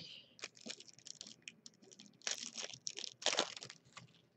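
Upper Deck hockey card pack wrapper crinkling and tearing as a pack is ripped open by hand, in quick uneven rustles with two louder bursts past the halfway mark.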